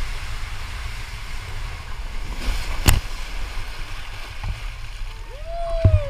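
Water rushing down a water slide channel under a raft, with a low rumble and wind on the microphone. One sharp knock about three seconds in.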